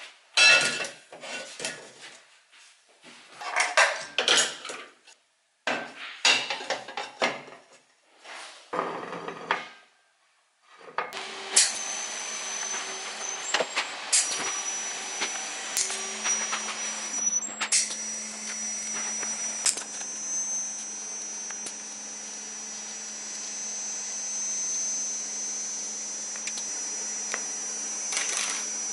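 Steel square-tube frame clattering in short, separate bursts as it is handled and set down. From about eleven seconds in, a TIG welder runs with a steady hiss and low hum, over a thin high-pitched whistle from a faulty shielding-gas pressure regulator that drops out briefly and comes back.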